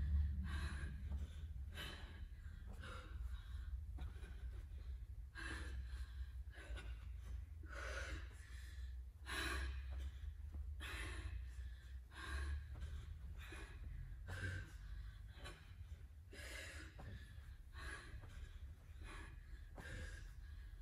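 Heavy, hard breathing of a woman doing sit-ups mid-workout, a sharp breath roughly every second and a half, over a steady low hum.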